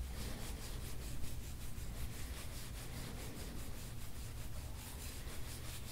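A gua sha scraping tool rubs over the skin of the upper neck in quick, repeated strokes.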